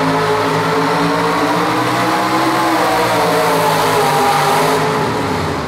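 Pulling truck's engine running hard at high revs under load during a pull, its pitch wavering slightly; the sound eases off near the end.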